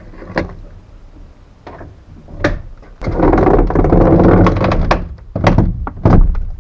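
Knocks and clunks from handling the car's rear body panels, with a loud scraping rattle lasting about two seconds in the middle and two more door-like knocks near the end.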